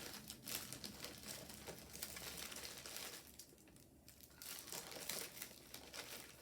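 Plastic candy wrappers crinkling as individually wrapped sweets are handled and sorted, a run of quick crackles with a brief lull about midway.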